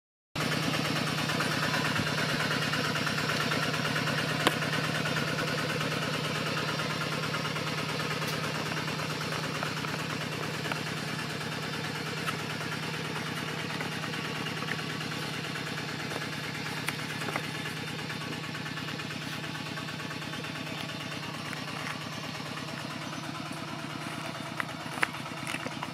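Steady low hum of a running motor under a hiss, with a few faint clicks, slowly fading a little.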